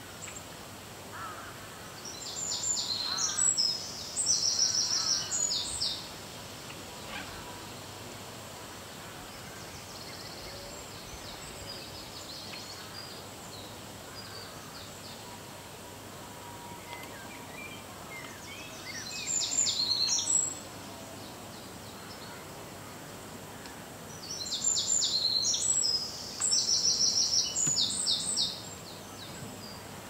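A songbird singing loud, high-pitched phrases of rapid trilled notes in three bouts: a few seconds in, about twenty seconds in, and near the end. Fainter bird calls sound between the bouts.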